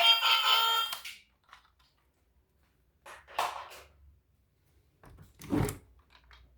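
An electronic, alarm-like sound made of several steady tones stops about a second in. It is followed by two short noisy knocks, about two seconds apart.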